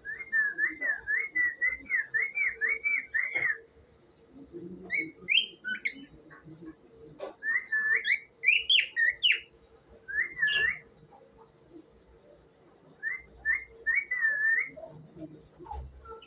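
Cockatiel whistling: a quick run of repeated rising-and-falling whistled notes over the first few seconds, then several shorter phrases of higher, more varied notes with pauses between them.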